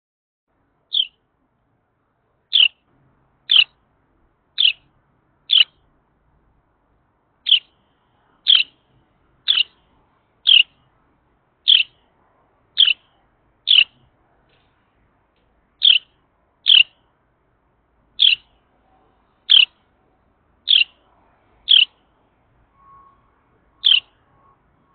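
Carolina wren repeating single sharp call notes, each sliding quickly down in pitch, about one a second with a couple of short pauses.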